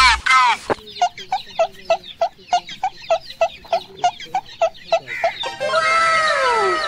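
Chicken clucking in a quick, even series of short calls, about four to five a second, followed near the end by a few long calls that fall in pitch.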